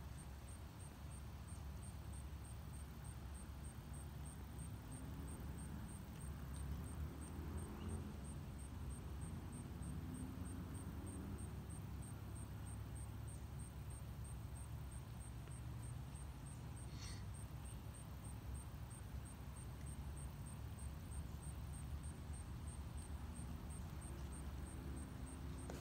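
Quiet outdoor ambience: a steady low rumble like distant traffic, with a faint high ticking about three times a second throughout and a single brief high chirp about two-thirds of the way through.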